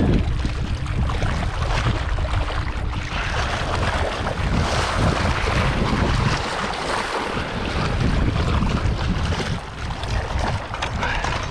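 Wind buffeting the microphone: a rushing noise with a heavy low rumble that wavers in strength.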